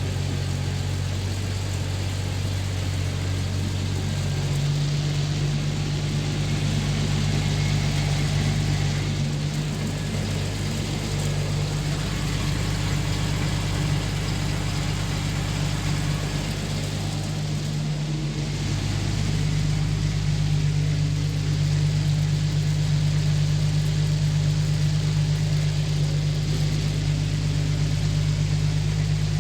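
Jeep Cherokee XJ engine idling in gear with the rear wheels off the ground, turning the driveshaft and Chrysler 8.25 rear axle with its 4.88 gears and a chipped ring gear tooth; a steady low hum and drone whose pitch steps a few seconds in and dips briefly a little past halfway. The balancing beads in the tyres add some of the noise.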